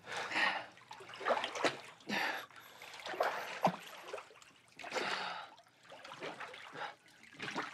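Water splashing as someone swims, a run of uneven splashes roughly once a second.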